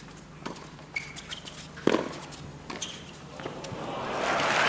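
Tennis rally: a few sharp racket strikes on the ball, with shoe squeaks on the hard court, then the arena crowd starts cheering and applauding about three and a half seconds in, growing louder as the point ends.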